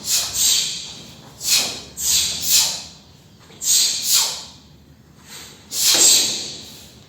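Taekwondo form being performed: a run of sharp hissing swishes, mostly in pairs about half a second apart, from the uniform snapping and forceful breaths with each strike or block.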